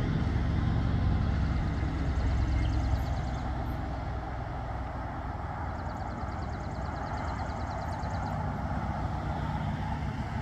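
Heavy diesel engine running steadily with a deep hum, loudest for the first few seconds, then easing off and swelling a little again near the end.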